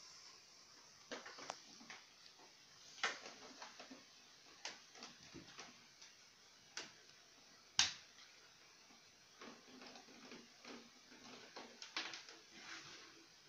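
Scattered clicks and light knocks of a screwdriver working the screws out of a CRT television's plastic back cover, with the sharpest knock about eight seconds in.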